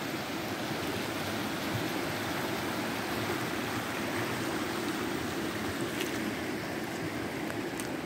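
Flash-flood runoff rushing fast down a desert wadi's gravel channel: a steady rushing of water.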